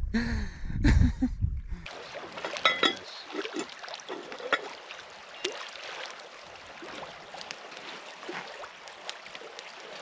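A man laughing with wind rumbling on the microphone, cut off after about two seconds. Then a steady light hiss of open-air wind with scattered small clicks and ticks.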